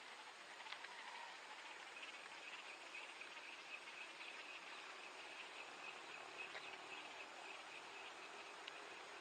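Faint, steady high-pitched insect buzzing, with a few faint clicks.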